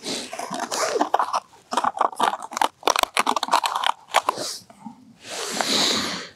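Packed snow and ice crunching and scraping as a winter pike tip-up is worked back into an ice hole: irregular crunches, then a longer swish near the end.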